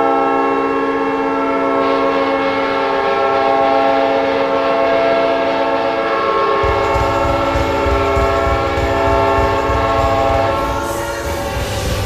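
An NHL arena goal horn blaring in one long, steady chord of several tones, cutting off about eleven seconds in. A goal song's low, steady beat comes in underneath it about six and a half seconds in.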